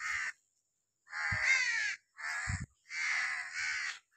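Crows cawing repeatedly, a run of harsh calls each about half a second long, with a couple of low bumps on the microphone between them.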